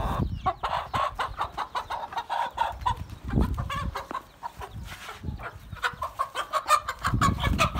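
Aseel chickens clucking in quick runs of short notes, with a few low thumps about three and a half seconds in and near the end.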